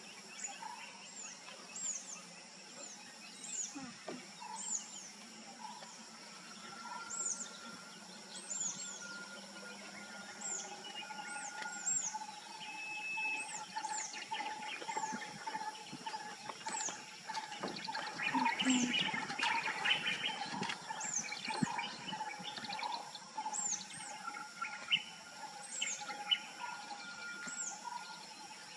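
Birds chirping: short, high, downward-sweeping chirps repeated about once or twice a second, over a steady high drone of outdoor background noise.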